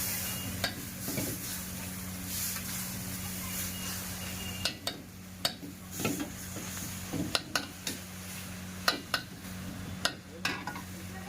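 Chicken frying in a hot pan with a steady sizzle, then a metal spatula scraping and knocking against the pan repeatedly as the chicken is stirred and tossed.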